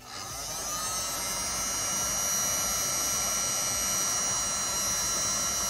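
Handheld electric heat gun running, its fan spinning up over the first second or two and then holding a steady rush of air with a high whine.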